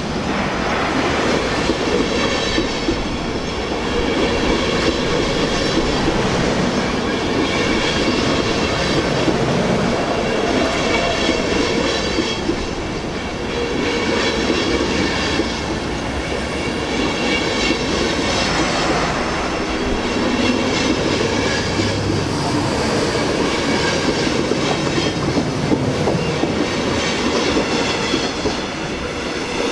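Intercity passenger coaches rolling slowly past along a station platform: a steady rumble with a high wheel squeal that comes and goes.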